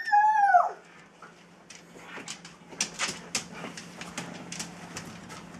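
A drawn-out howl wavering in pitch that trails off with a falling glide in the first second, followed by soft irregular clicks and taps.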